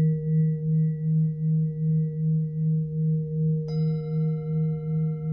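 Singing bowl ringing with a deep, steady tone that wavers about three times a second. Near the end, a higher bowl is struck and rings on above it.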